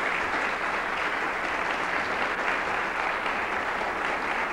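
Conference audience applauding steadily to welcome a speaker to the podium.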